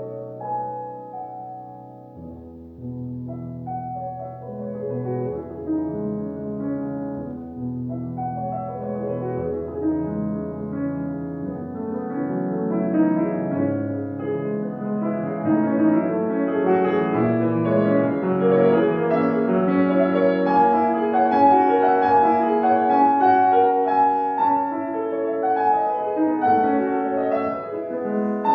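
Piano playing classical music, with deep bass notes held through the first half, then growing louder and fuller from about halfway in.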